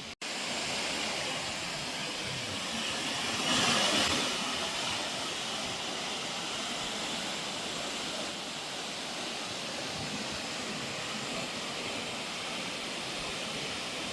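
Waterfall with a steady roar of rushing water, swelling a little about four seconds in.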